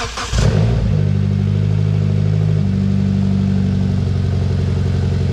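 Mitsubishi Lancer Evolution X's turbocharged 2.0-litre four-cylinder engine starting: the starter cranking ends about half a second in, the engine catches with a short rev flare, then settles into a loud, steady idle. This is its first start after the new intercooler was fitted.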